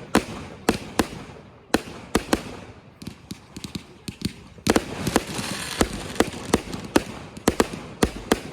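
Fireworks going off: a quick, irregular series of sharp bangs, with a hissing crackle that swells about halfway through and then fades.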